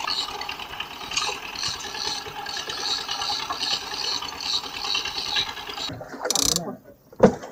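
Conventional fishing reel ratcheting with a steady run of fast clicks while a freshly hooked fish is played on the rod. The clicking stops about six seconds in, and a short hiss and a sharp knock follow near the end.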